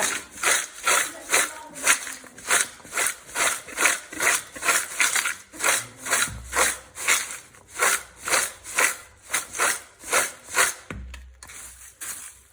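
Crunchy fried mixture snack (gram-flour sev, peanuts, roasted gram) being mixed in a bowl: a rhythmic dry rustle about two or three times a second, dying away near the end.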